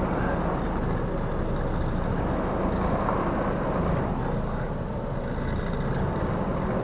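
Scania 124L 420's straight-six diesel running steadily at low revs while the truck and trailer manoeuvre slowly, a constant low drone.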